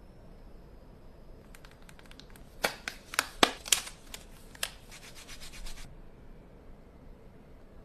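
Hands handling packaging during an unboxing: a run of short scratchy rubs and clicks lasting a few seconds, loudest in the middle, with a few sharper clicks.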